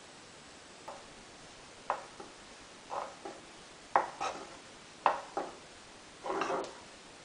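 A spoon stirring soup in a cooking pot, knocking against the pot's side in sharp knocks, often in pairs, about once a second, with a longer scraping rattle near the end.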